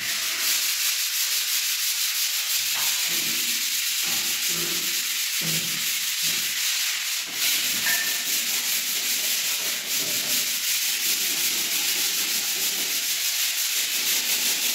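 Sandpaper on a hand sanding block rubbing over wall putty, a steady hiss of hand sanding.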